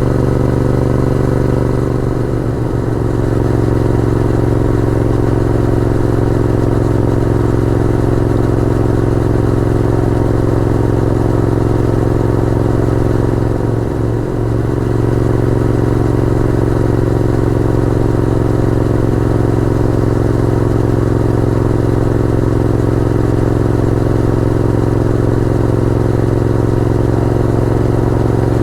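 Honda VTR1000F's 90-degree V-twin engine running steadily under way. The engine note briefly dips twice, about two seconds and fourteen seconds in.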